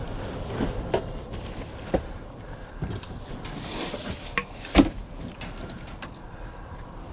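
Junk being handled and shifted while rummaging through a dumpster: scattered knocks and clunks, the loudest about five seconds in.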